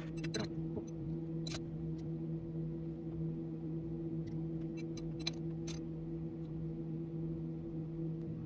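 Steady low electrical hum from the lathe setup while the spindle stands stopped, with a handful of light clicks and taps of metal handling in the first few seconds.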